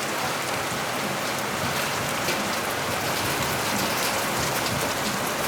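Heavy rain pouring down steadily, a dense even hiss of rain hitting hard surfaces.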